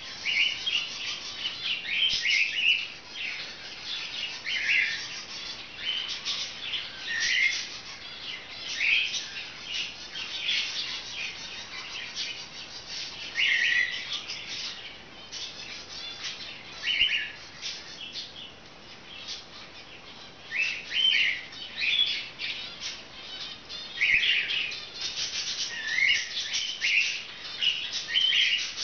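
Pet budgerigars chirping, with short chirps every second or so over a steady scratchy chatter.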